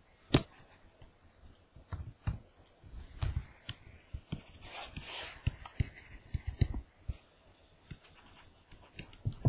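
Stylus tapping and sliding on a tablet PC screen: a run of irregular light taps and clicks, with a short scratchy stretch about five seconds in.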